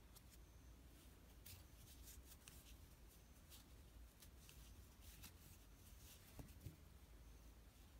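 Near silence: faint scattered ticks and rustles of a crochet hook and yarn being worked by hand through half double crochet stitches, over a low room hum.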